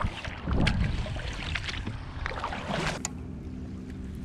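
Wind on the microphone and water moving around a plastic fishing kayak, with a few sharp clicks. About three seconds in the sound cuts abruptly to a quieter, steady low hum with occasional clicks.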